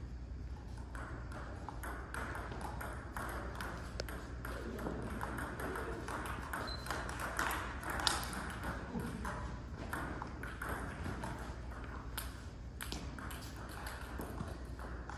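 Table tennis rally: the celluloid ball clicks sharply and irregularly off rubber paddles and bounces on the table, with more clicks from play at a neighbouring table. A steady low hum runs underneath.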